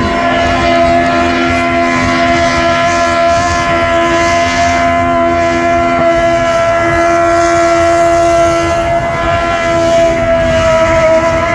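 Small mascot car doing a burnout: its engine held at high revs at a nearly steady pitch while the rear tyres spin and smoke, a loud unbroken sound with no lifts.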